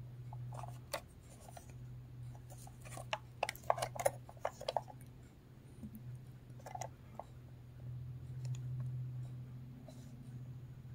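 Handling noise from a small plastic Sony SRF-22W pocket AM/FM radio being turned over in the hands: short plastic clicks and scrapes, a quick cluster of them about three to five seconds in and a few more near seven seconds, over a steady low hum.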